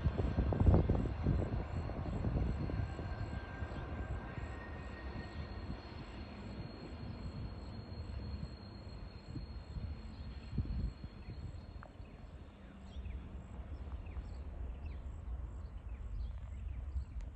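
Distant TasRail TR class diesel locomotives hauling a freight train, heard as a steady low rumble as the train approaches. Wind buffets the microphone in the first second or so.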